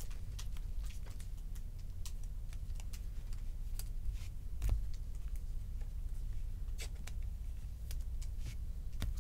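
Faint crinkling and scattered small ticks of a foil trading-card pack wrapper being handled and pulled open, with a soft thump just under halfway, over a low steady hum.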